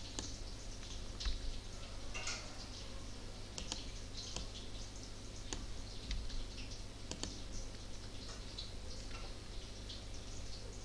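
Computer keyboard keys and mouse buttons clicking at irregular intervals, over a steady low hum.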